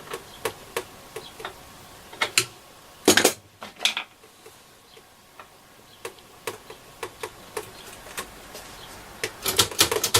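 Irregular small clicks and taps of hands and small tools working at the turret tuner knob of a Selena B210 transistor radio, with a louder cluster of knocks a few seconds in and again near the end.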